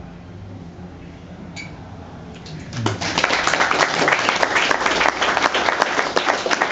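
Small audience clapping in applause, breaking out about three seconds in after a quiet stretch and continuing loud and dense.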